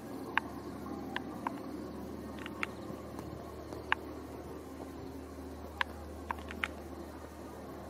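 Faint outdoor ambience: a steady low hum under about ten short, high chirps scattered at irregular intervals.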